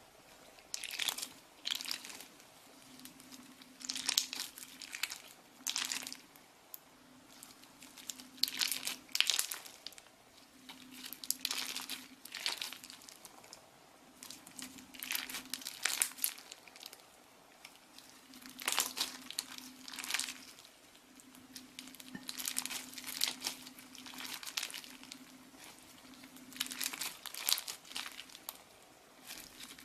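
Crunchy slime being squeezed and worked by hand, crackling and crinkling in repeated bursts every second or two.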